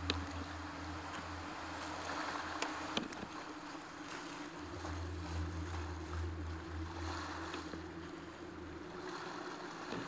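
River water rushing past a kayak running a shallow whitewater gorge, a steady wash of water noise with a low hum underneath. A few sharp clicks stand out near the start and about three seconds in.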